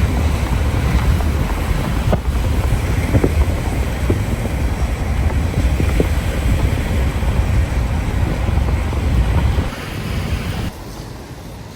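Strong wind buffeting the microphone as a loud, uneven rumble with a noisy hiss over it, easing about ten seconds in.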